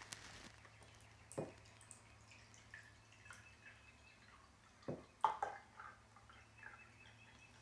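Water trickling faintly from a plastic filter pitcher into a glass measuring cup, with a few light knocks of the pitcher and cup, the loudest about five seconds in.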